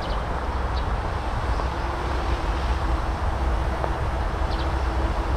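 Wind buffeting the microphone: a steady, uneven low rumble, with a faint steady hum joining about two seconds in.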